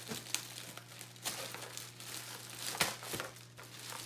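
Clear plastic packaging bag crinkling and rustling as it is handled and pulled open by hand, with irregular sharper crackles, the loudest near three seconds in.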